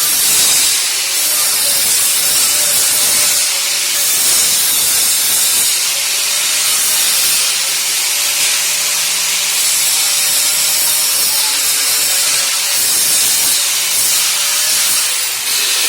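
Angle grinder running under load against sheet steel, a steady hissing grind over a motor whine that sags and recovers slightly as it is pressed: grinding off the dross left by plasma cutting.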